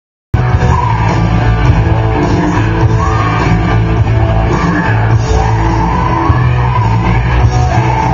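Loud rock music with heavy bass and electric guitar, cutting in abruptly out of silence about a third of a second in.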